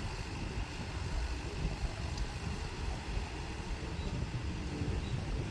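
Steady low rumble with an even noisy hiss above it.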